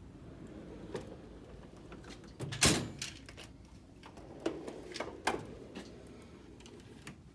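Metal tool chest drawers sliding and knocking shut, with one loud clack about two and a half seconds in and a few smaller clicks and knocks after it.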